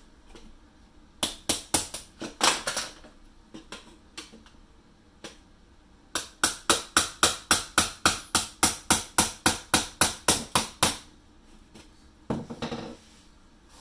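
Hammer strikes knocking at the end of an old interior window sill to loosen it: a few blows about a second in, then a steady run of about twenty quick strikes at roughly four a second.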